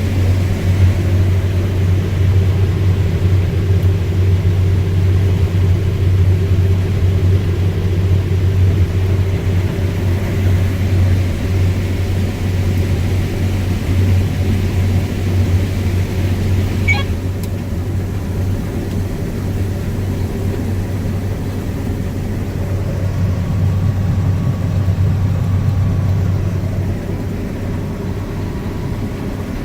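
Claas Lexion 750TT combine running steadily while harvesting corn: a constant low engine drone, easing slightly near the end, with one brief click about halfway through.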